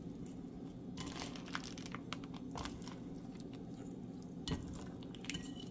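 A metal wire whisk stirring chocolate chunks into thick muffin batter in a glass bowl: soft, scattered scrapes and light clicks against the glass, over a steady low hum.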